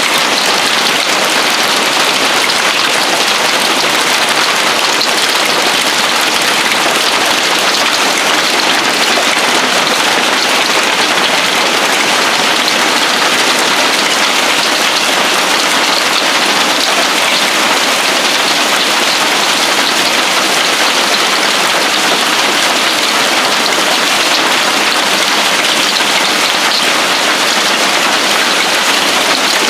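Heavy hail striking a roof and the ground: a dense, steady pelting clatter with no let-up.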